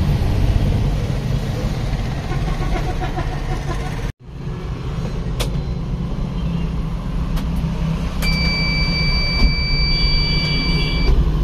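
Ignition of a Tata Ace Zip XL mini truck being switched on: a sharp click a little past the middle, then a steady high electronic beep from the dashboard warning buzzer for about three seconds near the end, over a low steady rumble.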